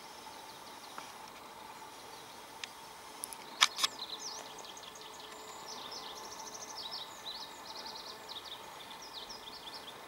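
Two sharp clicks about three and a half seconds in, then a small songbird twittering in quick high chirps and trills for the rest of the time, over a faint outdoor hush.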